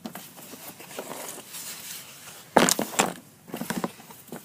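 Close handling noise: low rustling, then a loud sudden crackle about two and a half seconds in, and a few smaller clicks near the end.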